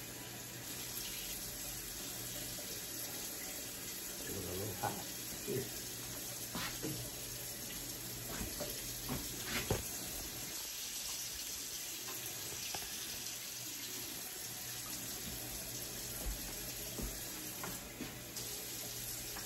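Kitchen faucet running steadily into the sink during dishwashing, with a few short clinks and knocks of dishes being handled, mostly in the first half.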